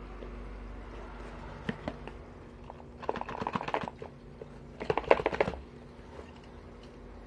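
Cardboard being handled as a small paperboard watch box is pushed into a corrugated carton: a couple of light taps, then two bursts of rapid scraping and crackling about a second each, the second louder.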